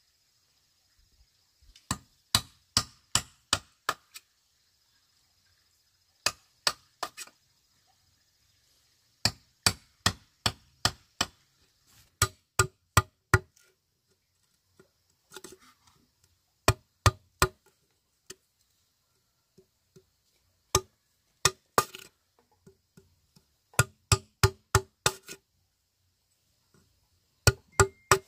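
A metal tool striking inside a bamboo tube to knock out its inner node walls: sharp knocks with a short hollow ring, about three to four a second in bursts of four to seven strikes, separated by pauses of one to two seconds.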